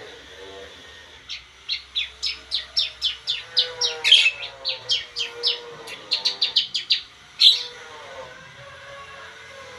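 Bar-winged prinia (ciblek) calling: a fast run of short, sharp high chirps, about four a second for some six seconds, with a louder note about four seconds in and another near the end of the run.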